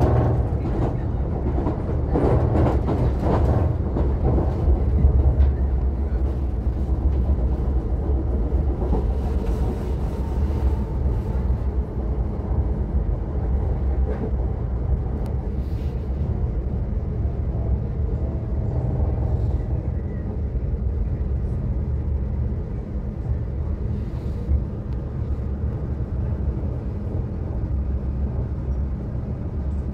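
Steady low rumble inside an electric passenger train, with a faint whine in the middle stretch.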